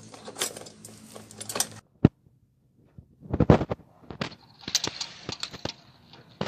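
Irregular metallic clicks, clinks and clanks of tools and small metal fixture parts being handled, with a loud cluster of knocks about halfway through.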